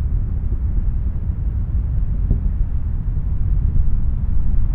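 Space Shuttle Atlantis climbing on its twin solid rocket boosters and three main engines: a loud, steady, deep rumble.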